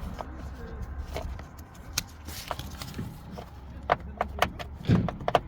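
Scattered clicks and light knocks of plastic trim, clips and parts being handled inside a car, with a louder thump just before the end and a quick run of clicks after it.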